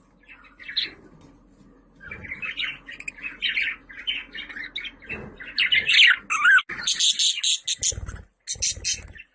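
Budgerigar chattering and warbling, a rapid run of chirps that turns louder and busier about halfway, with sharp high chirps near the end.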